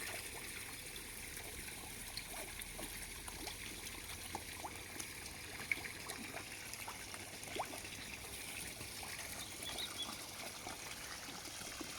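Garden koi pond water trickling steadily, with small scattered drips and splashes.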